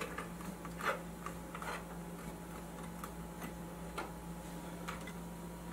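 Faint, scattered light clicks and taps of fingers pressing a plastic dial window into a receiver's metal front panel, over a steady low hum.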